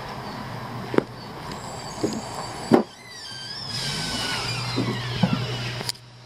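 A few footsteps, then a door swinging open with its hinges giving a long, falling squeal, and a sharp click near the end as it shuts.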